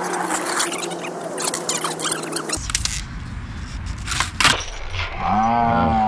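Skateboard trick on asphalt: a sharp crack and clatter of the board about four seconds in, then a long whooping yell. A steady low hum runs under the first two and a half seconds and cuts off abruptly.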